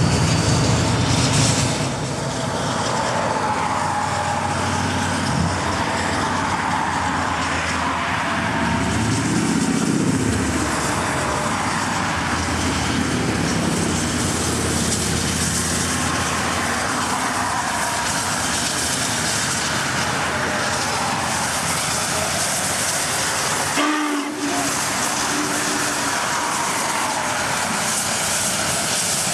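Union Pacific Challenger 4-6-6-4 steam locomotive rolling by with its train on an elevated line, mixed with steady road noise, heard from a moving car.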